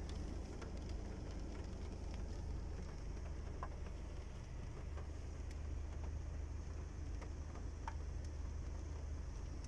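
Light rain tapping on a car's roof and windshield, heard from inside the cabin: scattered, irregular drop ticks over a steady low hum.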